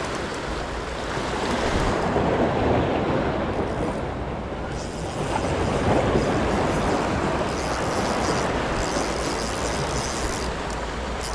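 Sea surf breaking and washing on a beach, a steady rushing noise that swells about two seconds in and again around six seconds.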